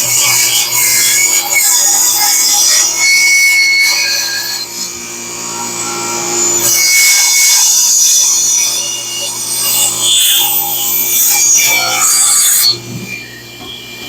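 Table saw ripping through a thick black walnut slab: a loud, rasping cut over the steady hum of the saw motor, easing briefly in the middle. The cutting noise stops suddenly near the end as the blade clears the board, and the motor keeps running.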